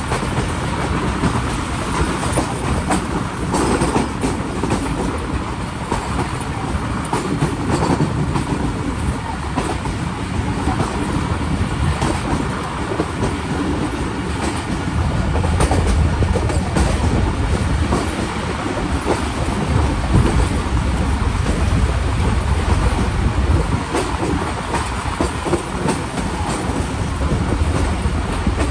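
Passenger train coaches running at speed, wheels clicking over rail joints above a steady rumble of running noise.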